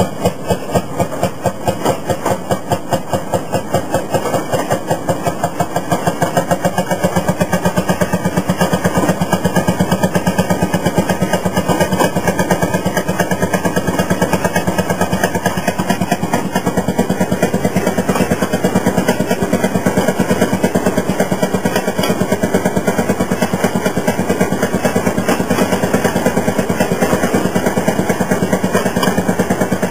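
Fairmont M-19 railroad motorcar's one-cylinder two-stroke 5 hp engine running under way, a rapid even putt-putt of firing beats. The beat picks up pace and grows louder about six seconds in.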